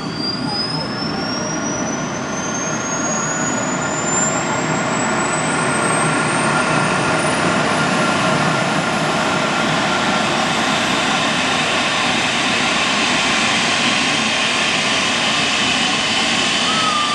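Trauma helicopter's turbine engines running loud, a high whine climbing in pitch over the first few seconds as the noise builds, then holding steady.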